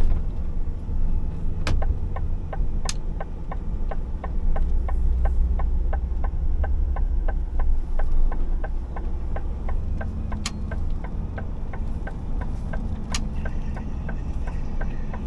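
Truck's diesel engine running low inside the cab, with the turn-signal indicator ticking about three times a second from about two seconds in until near the end. A few single sharp clicks stand out, about four in all.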